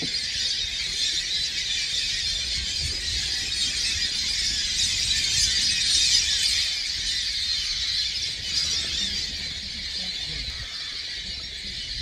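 A large flock of migrating birds calling in flight, many voices at once in a dense, high-pitched chatter that swells about halfway through and fades a little near the end.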